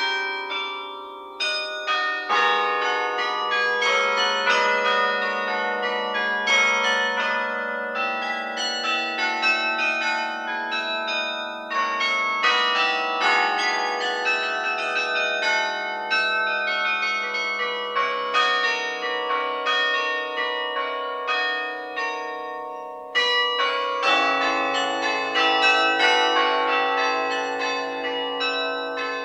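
Carillon played from its baton keyboard: many tower bells struck in quick succession, ringing on and overlapping one another. A lower bell joins about two seconds in, and a deeper one near the end.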